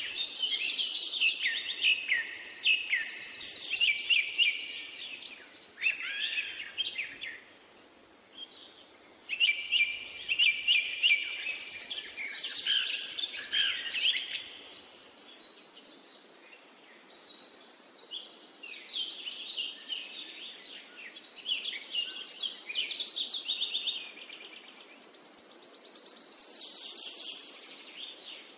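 Songbirds singing: phrases of quick high trills and chirps a few seconds long, each followed by a short pause.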